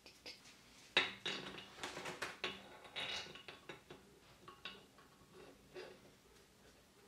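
Small steel gearbox parts clinking and tapping as they are handled and fitted by hand: a sharp clink about a second in, a quick run of clinks over the next couple of seconds, then lighter scattered clicks.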